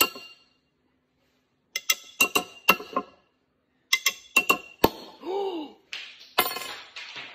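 Glass beer bottle being tapped sharply on its top, giving two quick runs of ringing clinks. A short gasped 'ooh' follows, then a fizzing hiss that fades as the beer foams up the bottle.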